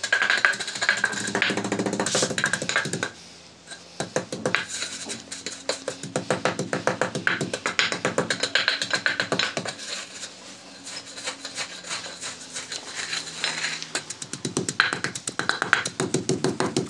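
Long wooden pestle pounding ginger, red chillies, sugar and salt in a stone mortar (kundi): rapid repeated thuds and grinding knocks, several strokes a second, with a brief pause about three seconds in. Faint background music runs underneath.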